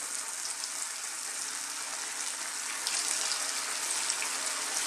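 Spinach and potato cakes deep-frying in very hot canola oil: a steady sizzle that gets a little louder about three seconds in as another cake is lowered into the oil.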